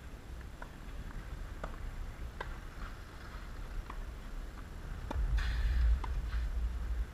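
Tennis ball being struck by rackets and bouncing on the court during a rally: sharp pops spaced about half a second to a second apart. About five seconds in there is a louder low rumble with scuffing for about a second.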